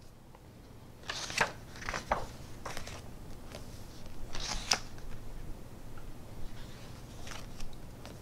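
Pages of a hardback cookbook being turned by hand: a run of short paper rustles and flicks over the first five seconds, the sharpest about four and a half seconds in, and one more near the end.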